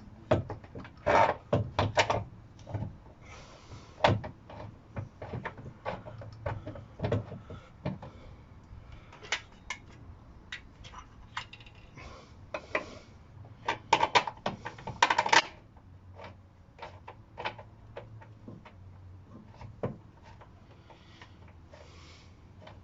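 Irregular metallic clinks, knocks and rattles as a Mini's rear trailing arm and its parts are handled and worked into place by hand, loudest in a quick flurry about two-thirds of the way through.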